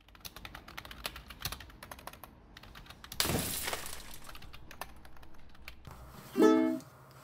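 Computer keyboards being typed on, a fast irregular clicking, with a brief rushing noise about three seconds in. Near the end a single ukulele chord is strummed.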